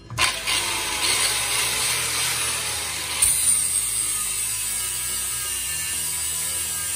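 Angle grinder spinning up and grinding a metal plate clamped in a vise, shaving material off so the part clears. The grinding is steady and gets hissier about three seconds in.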